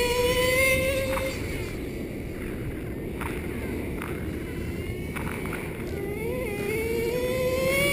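Traxxas Slayer 4x4 RC truck's two-stroke nitro engine at high revs, a high whine climbing in pitch for about the first second and then dropping away. It comes back and climbs again through the last two seconds, with a few faint clicks in between.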